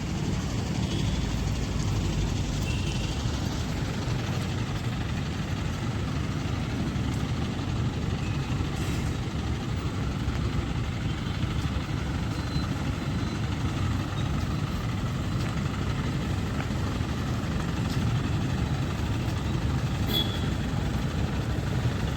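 Diesel engine of a Hydra pick-and-carry crane running steadily, a low even rumble.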